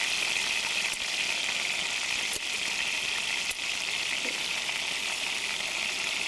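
Meat sizzling in a black camp oven set in hot coals: a steady hiss, with a few light knocks as potatoes are placed into the pot.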